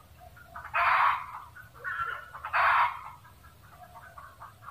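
Red junglefowl cackling: two loud, harsh cackles about a second and a half apart, with softer clucking calls between them.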